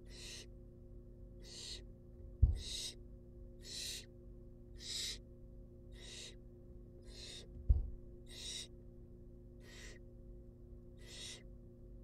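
Barn owl nestlings giving rasping, hissing begging calls about once a second as an adult feeds them. Two low thumps, the loudest sounds, come about two and a half seconds in and again near eight seconds.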